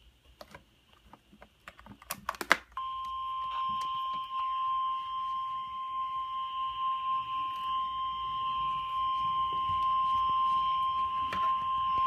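NOAA Weather Radio 1050 Hz warning alarm tone: a single steady high tone over a faint hiss, starting about three seconds in after a few clicks and held for about ten seconds. It is the signal that a warning message, here a flash flood warning, is about to be broadcast.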